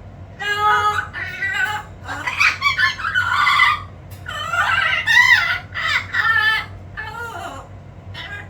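Amazon parrots calling: a run of loud, pitched squawks and chattering calls in quick succession, with a short pause about four seconds in before another run.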